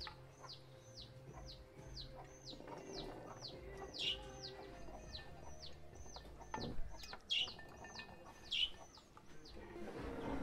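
A bird calling over and over, a quick high note sliding downward about three times a second, a few of them louder near the middle and end. Under it, light clicks and a knock of sea buckthorn berries being dropped into glass jars.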